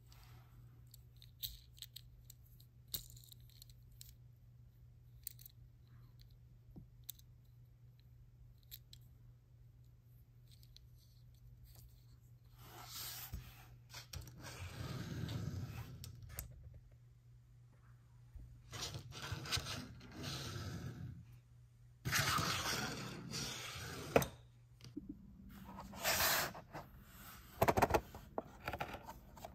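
Hands handling a small die-cast toy car, with faint scattered clicks. Then a Hot Wheels plastic blister pack on its cardboard card is rustled and crinkled in several bursts, with sharp plastic clicks near the end.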